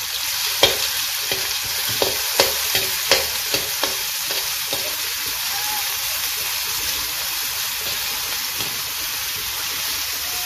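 Chopped onions sizzling in hot oil with cumin seeds in a metal kadhai, with a steady hiss. A metal spoon clicks and scrapes against the pan several times in the first few seconds of stirring.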